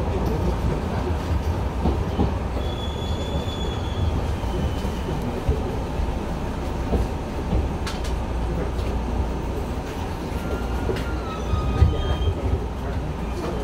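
Enshu Railway 2000 series electric train heard from inside the front car, rolling slowly along a station platform with a steady low rumble. A thin high squeal comes about three seconds in, and there are several short squeals near the end with a sharp clunk among them.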